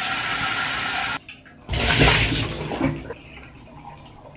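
Handheld shower head spraying water into a glass jar in a bathtub, cutting off suddenly about a second in. Shortly after comes a loud splash of water sloshing and pouring out as the jar is tipped and emptied, then it fades to faint sounds.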